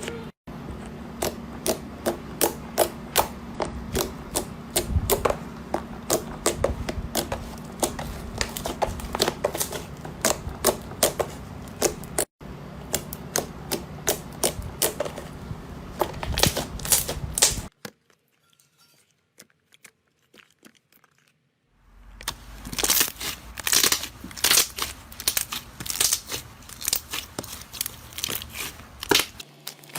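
Slime being squeezed, poked and stretched by hand, giving a fast run of crisp clicks and pops. The clicking stops for a few seconds of near silence just past the middle, then resumes.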